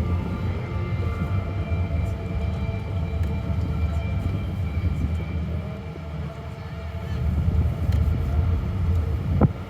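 Fireworks: a continuous low rumble of distant bursts, with one sharp bang about nine seconds in.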